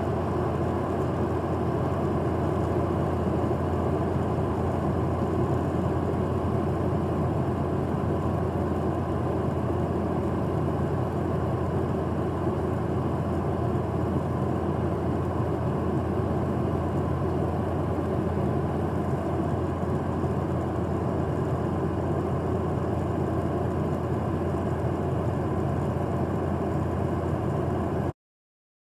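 Steady cabin noise of a Boeing 737 airliner cruising at altitude: jet engines and air rushing past the fuselage, with a constant low hum, heard from inside the cabin. It cuts off abruptly near the end.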